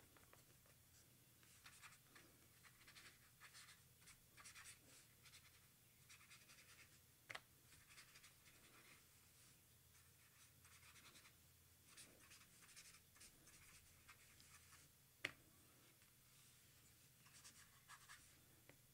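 Faint soft scratching of a water brush pen's bristles stroking watercolour onto paper, in short repeated strokes. Two sharp taps cut through: one about a third of the way in, and a louder one about three-quarters of the way in.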